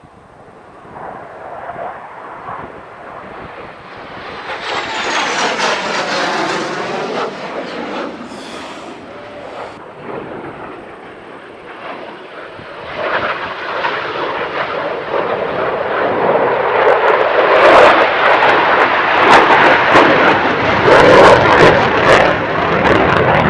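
Thunderbirds F-16 fighter jets passing low overhead. A first pass swells with a sweeping jet rush and fades within the first ten seconds. A second, louder jet noise builds from about thirteen seconds in and holds to the end.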